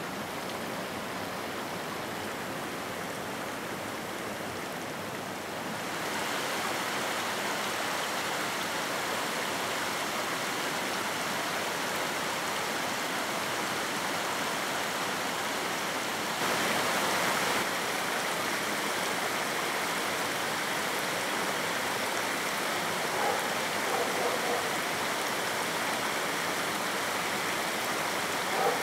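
Shallow rocky mountain stream running over stones and small cascades, a steady rush of water that gets louder at about six seconds and again at about sixteen seconds.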